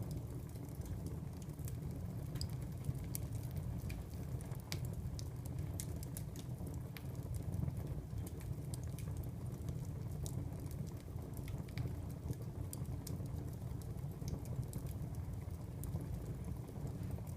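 Wood fire crackling in a fireplace: a steady low rumble of flames with frequent small sharp snaps and pops scattered throughout.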